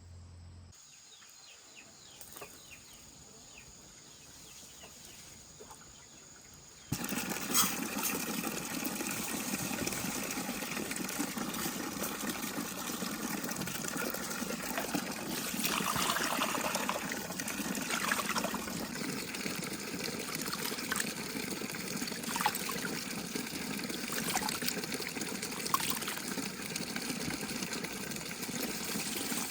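Fairly quiet for about seven seconds, then running water starts abruptly and continues steadily, with occasional light knocks and clicks.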